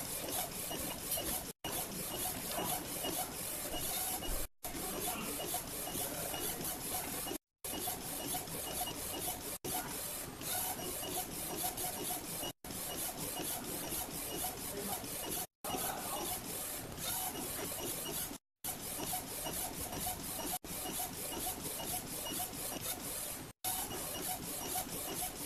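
Small A4 flatbed inkjet printer printing, its print-head carriage shuttling back and forth with a steady mechanical whirr. The sound drops out for an instant every two to three seconds.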